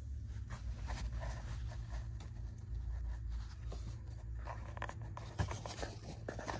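Rustling and scratching handling noise with scattered light clicks over a steady low rumble, as a phone is moved around under a car seat; one sharper click about five and a half seconds in.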